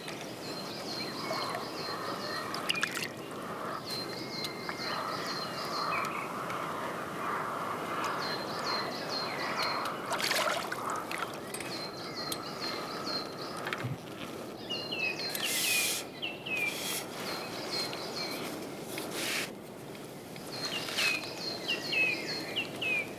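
Birds singing near the water, a short phrase of quick repeated high notes coming back every few seconds, with some lower falling calls later on. Under it runs a steady wash of wind and lapping water, with a few short splashes as a fish is played at the boat.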